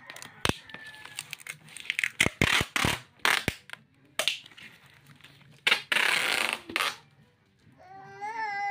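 Packing tape being pulled off the roll and wrapped around a cardboard box: tearing screeches and crinkling, with sharp taps as hands press the tape down. Near the end a long wavering cry begins.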